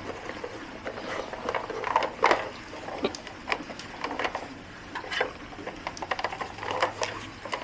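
A dog nosing and pawing at a treat puzzle box, its movable parts and door giving irregular light clicks and knocks, a few louder clacks among them.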